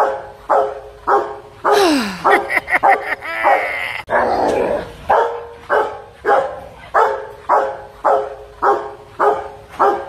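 Dog barking over and over in a quick, even run of about two to three barks a second. Between about two and five seconds in, the run is broken by other sounds, including a falling tone.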